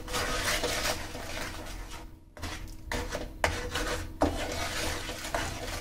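Wooden spatula scraping and rubbing against the pan while stirring a thick tamarind and jaggery chutney, in uneven strokes about once a second with a brief pause near the middle.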